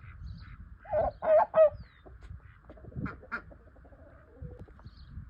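Domestic poultry calling, ducks among them: three loud calls in quick succession about a second in, then two shorter ones about three seconds in.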